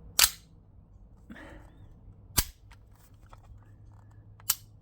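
Cybergun Desert Eagle 50AE CO2 blowback BB pistol firing three single shots about two seconds apart.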